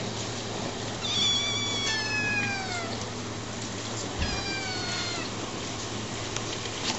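Eleven-week-old kittens meowing: three high calls that each slide down in pitch, about a second in, about two seconds in and about four and a half seconds in.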